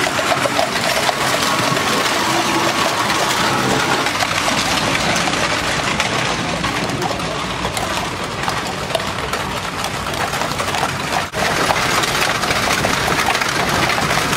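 Steady clatter and rumble of a horse-drawn tram car rolling along the road, a dense rattle of wheels and bodywork.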